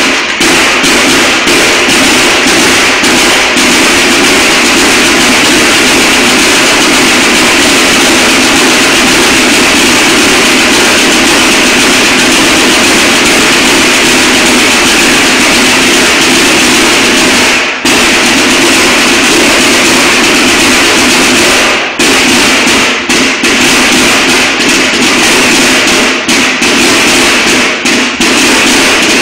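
Snare drum line of a marching band playing a fast, dense drum routine, very loud. It breaks off briefly about 18 and 22 seconds in, then plays in short phrases with quick stops near the end.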